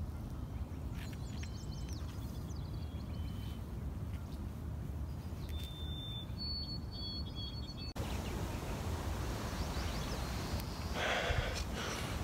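Outdoor ambience of wind rumbling on the microphone, with small birds chirping and whistling faintly. A short, louder sound comes near the end.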